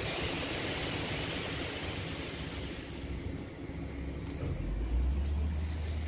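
Heavy engine and machinery running with a steady rumble. A low, even drone comes in strongly about four and a half seconds in.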